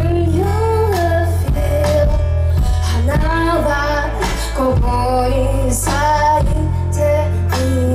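Live band music: a woman sings a gliding melody into a microphone over electric guitars and a drum kit, with a heavy low end.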